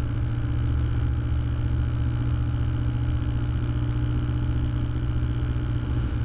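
Cessna 172M's Lycoming four-cylinder engine and propeller droning steadily in flight, heard inside the cabin.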